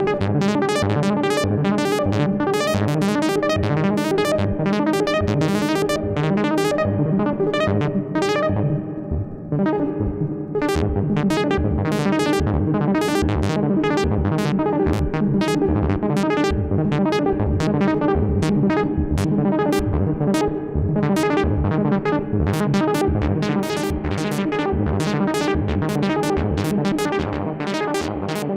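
Hardware synthesizer sequence: rapid, evenly repeating plucky notes, several a second, over sustained tones. The brightness dips and the sound softens about eight seconds in, then comes back bright about ten seconds in.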